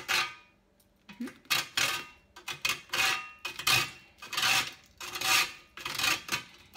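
A piece of dry toast being grated by hand on a stainless-steel box grater, a series of short rasping strokes about one and a half to two a second, the metal grater rattling lightly on a metal tray.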